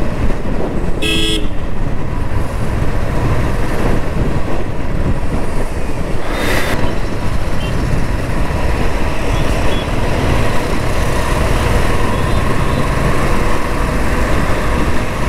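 Royal Enfield Classic 350's single-cylinder engine running steadily under way, heard from the rider's seat with road noise. A vehicle horn gives one short toot about a second in.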